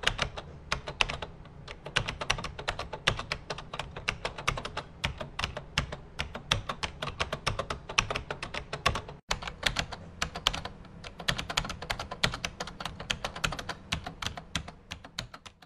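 Computer keyboard typing: a fast, uneven run of key clicks, several a second, with a brief break about nine seconds in.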